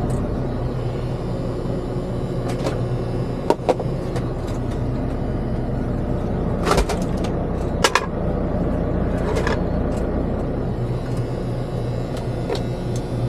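Steady low hum of an idling truck engine, with a few sharp clicks and knocks from things being handled in the cab.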